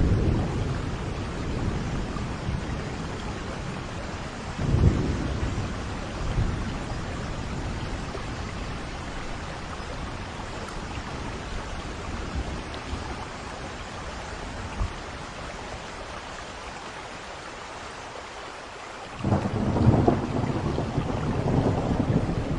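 Steady heavy rain with rolling thunder: short low rumbles about five and six seconds in, then a louder, longer rumble of thunder building near the end.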